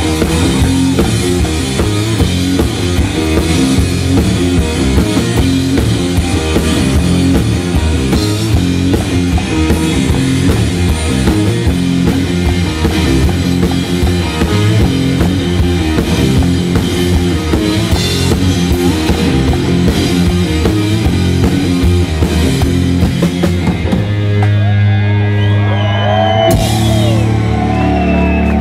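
Live rock music from a guitar-and-drums duo: a drum kit pounding steadily under electric guitar. About 24 seconds in the drumming stops and the guitar holds low ringing chords, with a single hit near the end.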